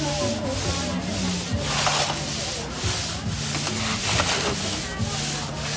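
Slushie machine running: glass soda bottles turning in a tub of crushed ice, the ice scraping against the glass in a rhythmic swish about twice a second.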